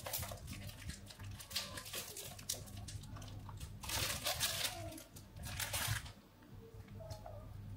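Plastic food wrapper crinkling and rustling as it is handled, in irregular crackly bursts with small clicks, loudest around four and six seconds in.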